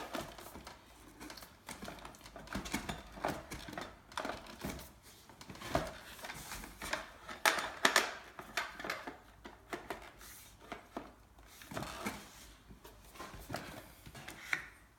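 Irregular clicks, taps and light knocks of e-bike parts and cable connectors being handled and plugged together by hand.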